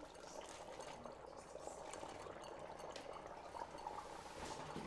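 Dry ice bubbling steadily in a bowl of warm water as it turns to carbon dioxide gas.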